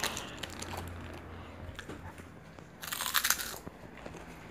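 A short crackling crunch about three seconds in, with a few scattered faint clicks around it.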